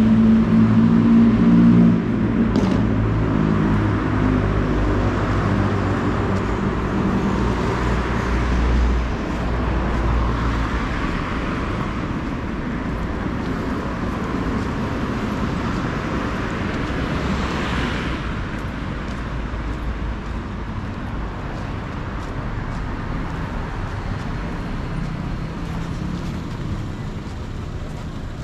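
Road traffic on a busy avenue: a heavy vehicle's engine hums low and steady at first, then cars pass one after another with tyre hiss, two of them closer about ten and eighteen seconds in, the traffic slowly fading.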